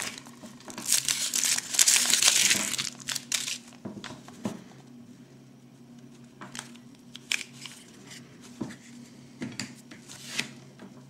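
Foil wrapper of a Kinder Surprise chocolate egg crinkling and tearing as it is peeled off, for about three seconds. Then scattered small clicks and cracks as the chocolate shell is split open and the yellow plastic capsule is handled.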